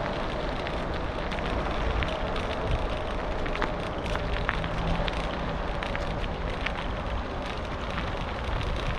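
Bicycle tyres rolling over a gravel and dirt path: a steady crunching noise with many small crackling ticks of loose stones under the wheels, over a low rumble.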